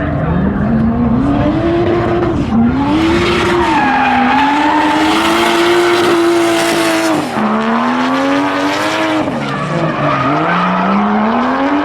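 Drift car engine revving up and down over and over as the car slides, with tyres squealing loudest through the middle.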